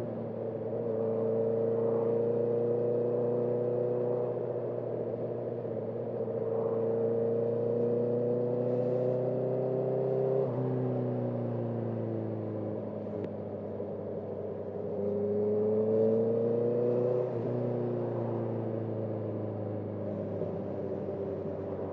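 Motorcycle engine pulling in a high gear, its note rising slowly for about ten seconds before the revs drop and sag. It climbs again briefly near three-quarters through, then drops once more.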